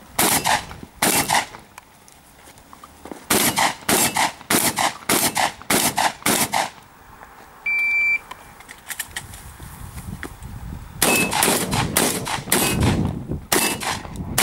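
Shotgun shots fired in quick succession during an IPSC stage run: two shots, then a fast string of about eight, a pause broken by a short high beep, then another rapid string near the end.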